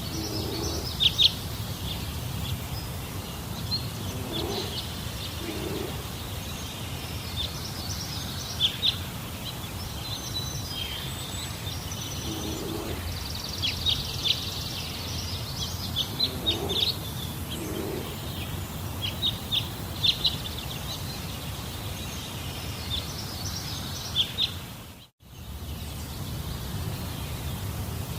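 Forest ambience: birds giving short, high chirps and calls again and again over a steady low rumble, cut by a brief dip to silence about 25 seconds in.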